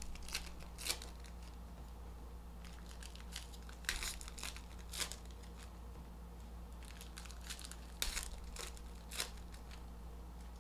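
Foil trading-card pack wrappers crinkling and tearing in short crackly bursts, several over the stretch, over a low steady hum.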